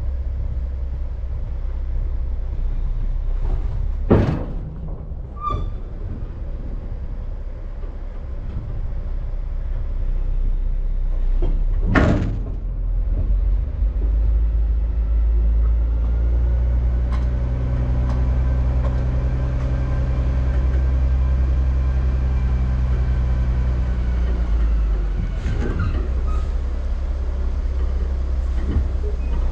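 Log truck's diesel engine running under the cab, working harder with a steady higher drone from about halfway through, then easing off near the end. Two sharp bursts of noise cut through it, about a third and halfway in.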